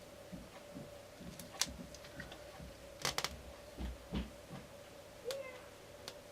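Scattered small clicks and taps from handling tools and adhesive strips on an iPad frame, including a quick cluster of sharp clicks about three seconds in and a couple of soft thumps just after. A steady faint hum runs underneath.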